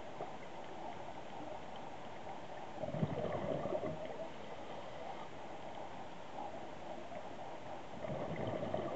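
Diver's exhaled bubbles from a scuba regulator, twice, about five seconds apart, over a steady underwater hiss.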